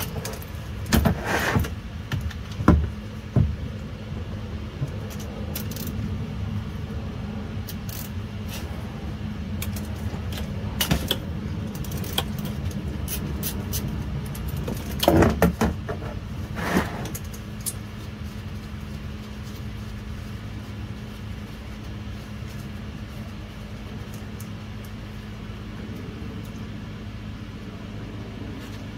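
Metal clicks and clinks of a ratchet and socket working on a car's transmission drain plug, in a few short clusters, over a steady low hum.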